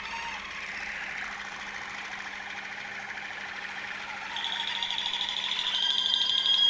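Waterslager Malinois canary singing: a continuous low warbling, rolling song that gets louder about four seconds in with a fast high trill, then a long steady whistled note near the end.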